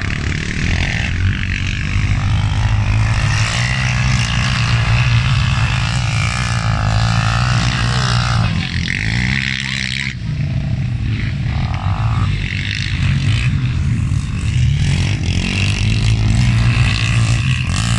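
Several racing quads (ATVs) running hard on a dirt track, their engine pitch rising and falling as they accelerate and back off.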